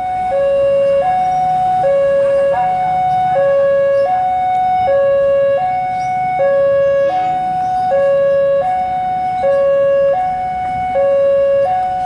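Two-tone hi-lo siren, alternating evenly between a low and a high note, each held for about three-quarters of a second.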